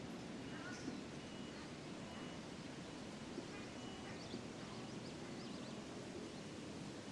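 Quiet outdoor ambience: a steady low background hum with small birds chirping faintly now and then.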